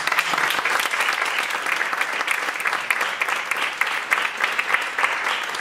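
Audience applauding: dense, even clapping that begins to die away near the end.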